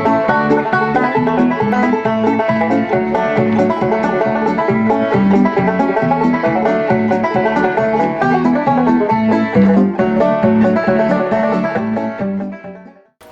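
Bluegrass music led by a picked banjo with a steady beat, fading out near the end.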